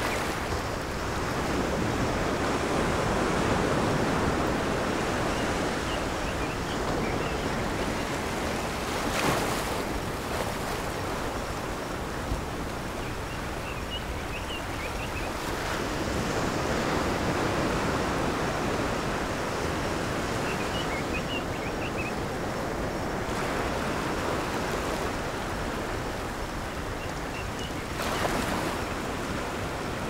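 Ocean surf: a continuous rush of small waves breaking and washing in, swelling and easing every several seconds, with sharper breaking washes about nine seconds in and again near the end.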